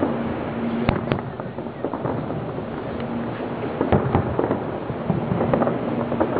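Fireworks going off: a continuous noisy crackle with sharp bangs about a second in, a pair around four seconds in, and another right at the end.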